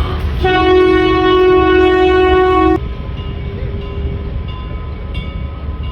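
A loud whistle gives one steady single-note blast of about two seconds, then cuts off sharply. A fainter tone hangs on briefly after it.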